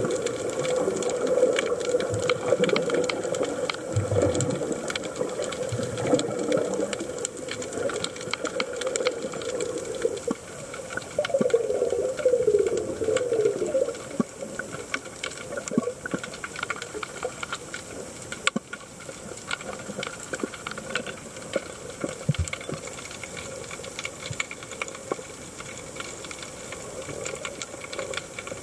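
Underwater sound heard through a submerged camera: a steady hiss scattered with crackling clicks, with bursts of bubbling and gurgling in the first part, strongest a little before halfway.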